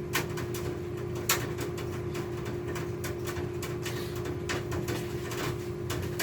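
Scattered clicks and rustles of objects being handled and moved about, over a steady low hum; one sharper click about a second in.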